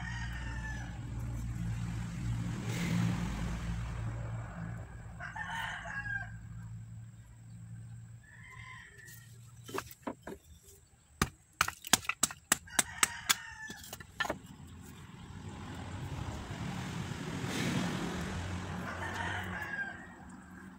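A rooster crowing several times. A cluster of sharp wooden clicks and knocks in the middle as split kindling sticks are set onto the fire, with a low steady hum under the first half.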